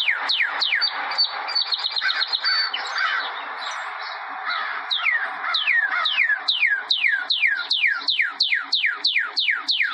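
Songbirds calling: one note falling sharply in pitch, repeated about three times a second. About a second in it gives way to a fast run of short high chirps over busy chattering, and the falling notes return about halfway through.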